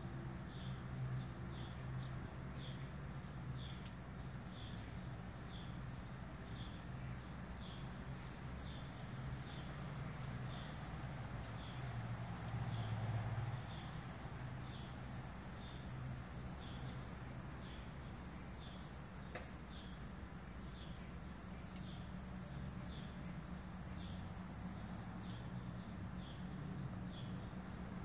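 Insects calling: a short chirp repeating a little more than once a second over a steady high buzzing trill, which grows louder about halfway through and cuts off suddenly near the end. A low steady hum runs underneath.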